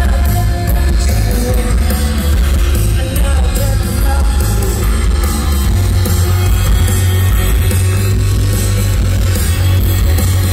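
Rock band playing live at full volume: drums, heavy bass and electric guitar, with a woman singing, heard from the audience.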